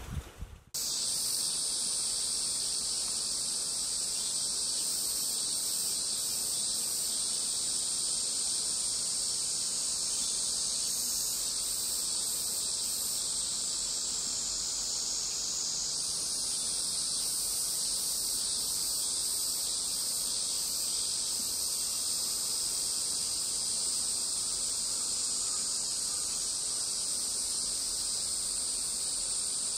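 Dense, steady chorus of insects in the open air, a continuous shrill high-pitched drone that cuts in abruptly about a second in.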